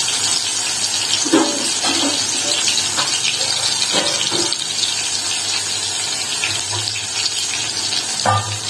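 Water running from a kitchen tap as the container of ground paste is rinsed, with a few light knocks of the container.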